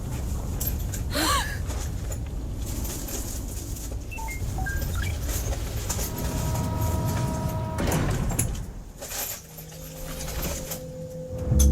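Animated-episode soundtrack: a low rumble of sound effects with a swooping whoosh about a second in, then a held musical note coming in near the end.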